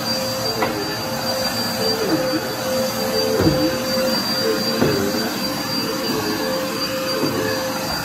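Bagless upright vacuum cleaner running on a carpet runner: a steady high whine whose pitch dips briefly a few times as it works the carpet.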